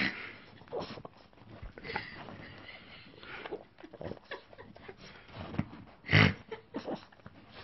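Boston terrier eating small cheese crackers off a duvet: irregular crunching and sniffing at the food, with one louder noise about six seconds in.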